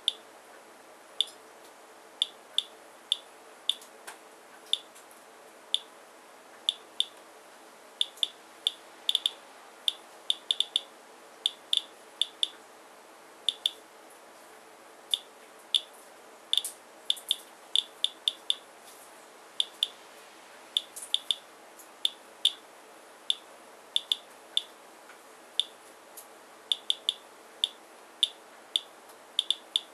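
Radiation counter clicking at random, irregular intervals, about two to three sharp high clicks a second, as it counts a rain-soaked paper towel sample; the test averages about 157 counts per minute.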